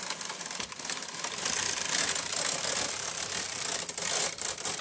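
Brother KH-970 electronic knitting machine carriage being pushed across the needle bed, knitting one multicolour row. It makes a continuous clattering whir of needles and cams that swells toward the middle of the pass.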